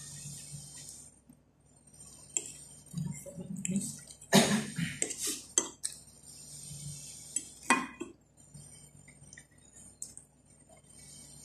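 Metal fork scraping and clinking against a ceramic plate while cutting and picking up pieces of cinnamon roll. It comes in a few short bursts, the loudest about four to six seconds in and another near eight seconds.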